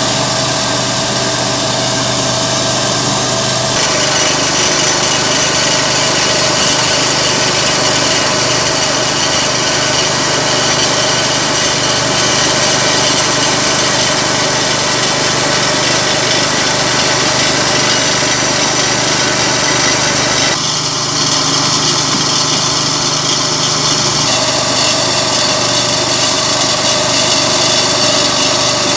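Mahoe sawmill's engine running steadily under load while its slabbing attachment cuts a slab lengthwise through a log, a bright cutting hiss laid over the engine's steady note. The cutting noise brightens about four seconds in and shifts in tone again later on.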